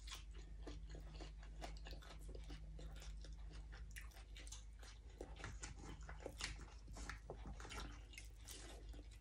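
A person chewing a mouthful of fresh leafy herbs close to a clip-on microphone: soft, irregular crunching and wet mouth clicks.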